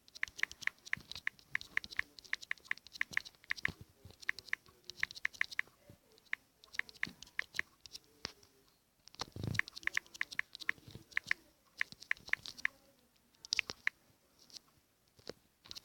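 Typing on a keyboard: rapid key clicks, several a second, in bursts with short pauses. There is a single low thump about nine and a half seconds in.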